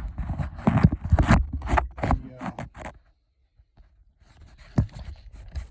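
Irregular clicks and scrapes of hands handling parts, a second of silence, then a faint hiss with a single click.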